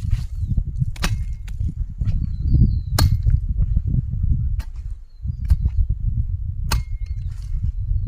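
A garden hoe chopping into soil while weeding: sharp, irregular strikes roughly once a second over a steady low rumble.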